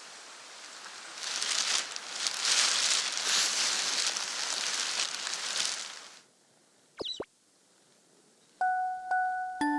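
Rustling, crackling noise for about six seconds that cuts off abruptly, then a brief whistling sound effect. Near the end, glockenspiel-like chime notes of background music begin.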